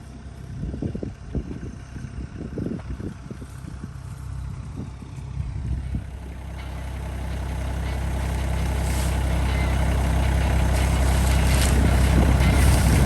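Compact tractor engine running, growing steadily louder over the second half, after a stretch of scattered low knocks and thumps.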